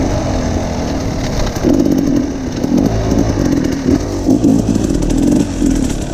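Enduro dirt bike engine heard on board as it is ridden along a trail. From about a second and a half in, the engine note surges and drops repeatedly with quick throttle blips.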